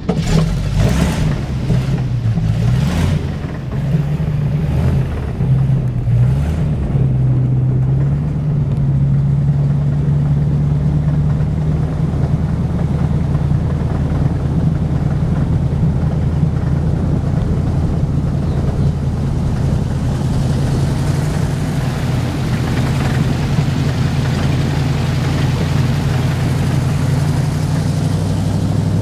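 Airboat engine and propeller running loud: the engine revs up and down for the first several seconds, then holds a steady pitch. A hiss builds over the engine in the later part.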